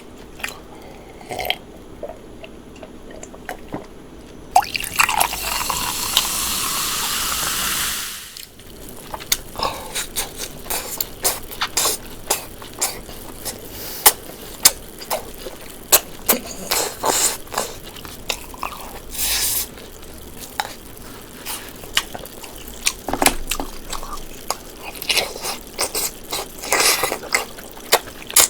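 A drink poured steadily into a glass for about three and a half seconds, rising slightly in pitch as it fills. This is followed by close, wet chewing and lip-smacking clicks of someone eating.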